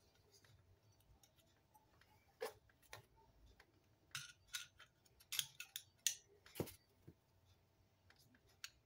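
Faint clicks and taps of hand tools and small metal and plastic parts being handled while working on a small-engine recoil starter, with a busier run of clicks about four to seven seconds in.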